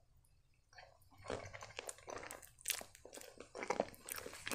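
Faint chewing of a mouthful of penne pasta in creamy Alfredo sauce: irregular mouth clicks and smacks that start about a second in.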